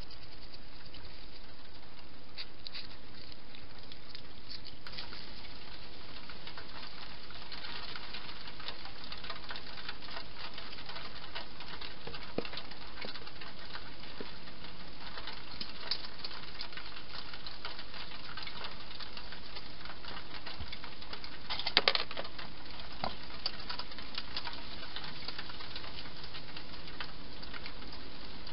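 Wild hedgehog feeding, with fast crackly clicks of chewing and crunching over a steady faint hiss, and a louder cluster of clicks about three-quarters of the way through.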